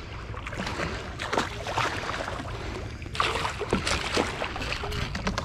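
A hooked bluefish splashing at the surface beside a kayak, with a louder burst of splashing about three seconds in as the fish is lifted out of the water.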